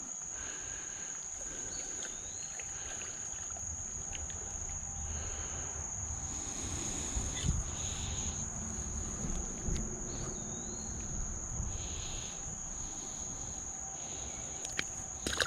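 Insects calling in one steady high-pitched drone, over the low rush of creek water, with a few short soft noises scattered through.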